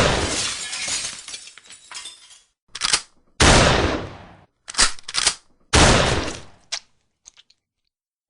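Shotgun fired three times, each blast ringing out and dying away over about a second. Before the second and third shots come two quick metallic clicks of the action being worked to chamber a new shell, and a few light clicks follow near the end.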